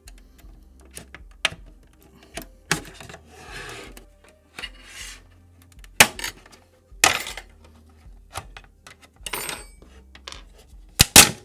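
Plastic pry tool working around the seam of a plastic access point shell: scraping with irregular sharp clicks and snaps as the retaining clips resist and give, the loudest snaps near the end.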